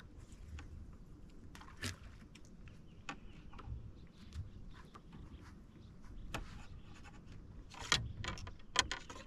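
Scattered light clicks and knocks of hands handling gear on a bass boat's deck, the sharpest two close together near the end.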